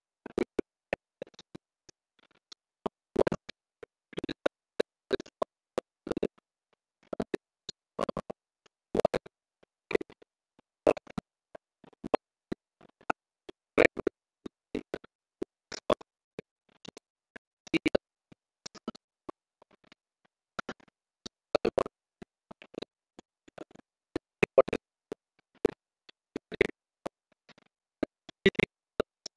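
A string of short, irregular clicks and knocks, about one or two a second, with dead silence between them.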